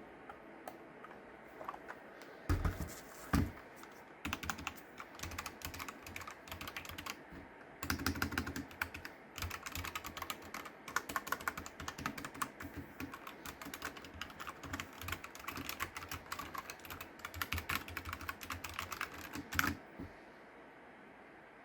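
Typing on a Havit KB498L 60% mechanical keyboard with brown switches: a fast, continuous run of key clicks, with a couple of heavier thumps near the start. It begins a couple of seconds in and stops about a second before the end.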